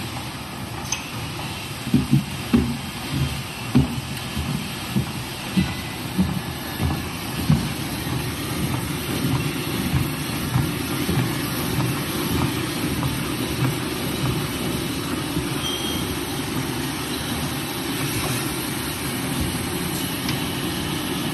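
Band saw log-cutting machine for toilet paper and kitchen towel rolls running with a steady low mechanical rumble. A run of irregular knocks comes in the first third, then it settles into even running.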